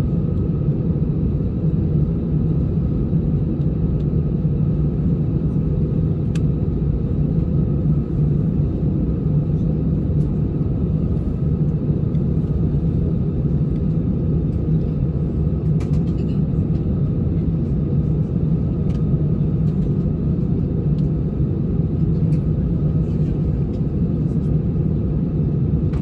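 Airbus A319-111's CFM56-5B engines idling, heard inside the cabin as a steady low rumble and hum, with a few faint clicks.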